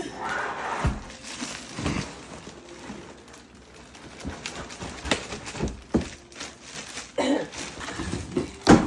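An appliance's cardboard box and packaging being opened and handled roughly: rustling and scraping with irregular knocks and thumps, a noisy rather than gentle unboxing.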